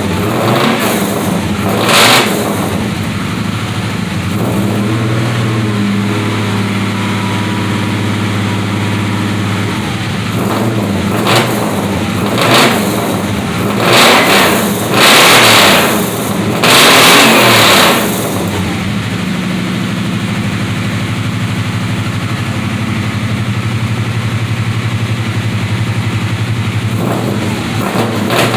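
A 383 small-block Chevy V8 idling through Hedman headers, 2.5-inch pipes, MagnaFlow mufflers and pencil tailpipe tips, blipped several times. There is one short rev about two seconds in and a run of revs in the middle, two of them held for about a second each. It settles back to idle, then revs again near the end.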